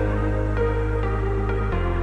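Background music: a calm electronic piece with sustained bass notes changing every second or so and a soft melody above.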